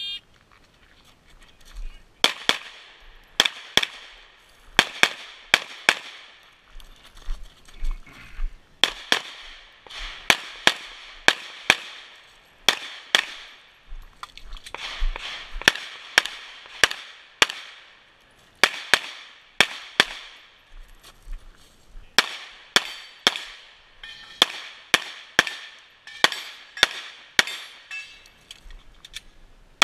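Glock 9mm pistol fired in rapid pairs and strings of shots, dozens in all, each a sharp crack with a short echo, with brief gaps between strings. A shot timer's start beep sounds right at the start, and the first shots come about two seconds in.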